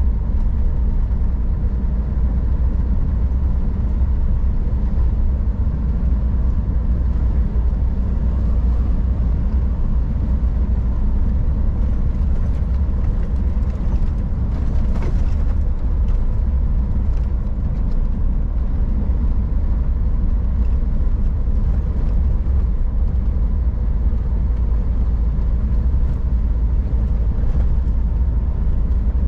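Scania R440 truck's diesel engine running steadily under way, a deep even rumble with road noise.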